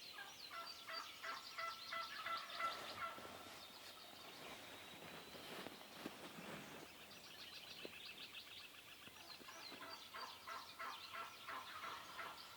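Wild turkey gobbling twice, one rattling gobble near the start and another near the end, with songbirds chirping faintly throughout.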